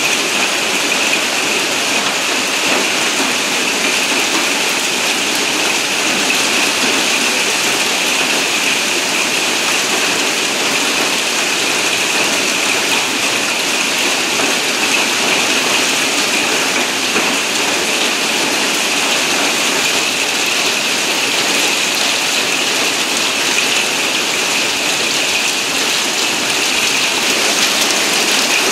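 Large hailstones, many the size of ping-pong balls, falling thickly with heavy rain: a loud, steady clatter on the petrol station's sheet-metal roof overhead and on the pavement.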